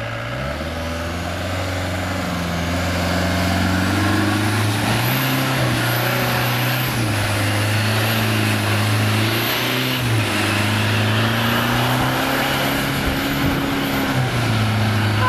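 Land Rover engine running hard as the four-by-four drives through a stream, its revs stepping up and falling back several times, with water churning and splashing around the wheels.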